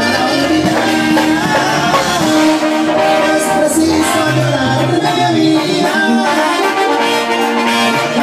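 Live Latin band music played loud, with an electronic keyboard in the foreground and a brass-like lead line of held notes over the band.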